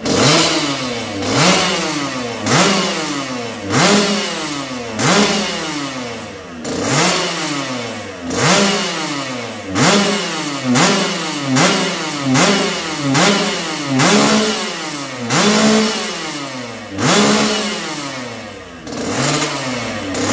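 Kawasaki Ninja 150 RR single-cylinder two-stroke engine in a Husqvarna motocross chassis, revved in repeated throttle blips, about one a second. Each blip rises sharply and falls back toward idle.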